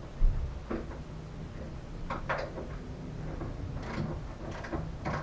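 Scattered metallic clicks and knocks of hand tools working on the body panels of a Citroën 2CV, with a low thump about a quarter second in, as the wing valance is unbolted.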